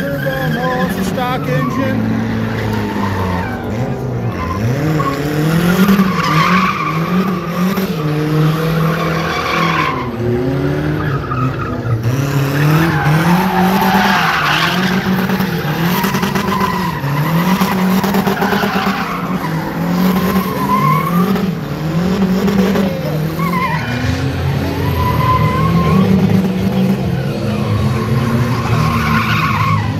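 A car engine revving up and down over and over as the car spins donuts, its tyres squealing and smoking against the pavement.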